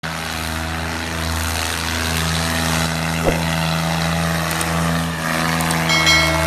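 New Holland 3630 tractor's diesel engine running steadily as it hauls a heavily loaded trolley. A short knock about three seconds in, and a brief high chime near the end.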